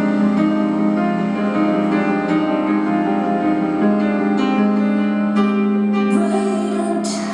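Live piano music: slow, sustained chords ringing over a held low note, without singing.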